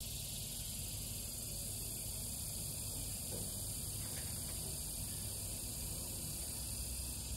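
Steady outdoor insect chorus, a continuous high buzzing hiss, over a low background rumble.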